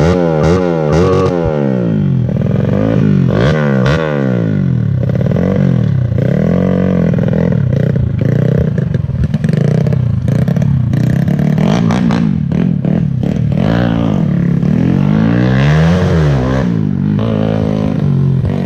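Underbone (bebek) motorcycle engine being revved over and over, its pitch rising and falling in quick blips about twice a second at first, then in longer rises and falls about once a second.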